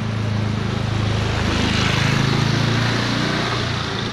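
A motor vehicle's engine passing close by, getting louder to a peak about two seconds in and then fading.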